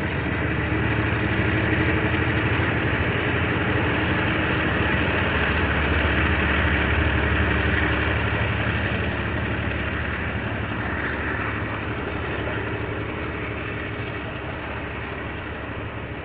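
Diesel locomotive engine running steadily as a train passes, loudest about halfway through and then slowly fading.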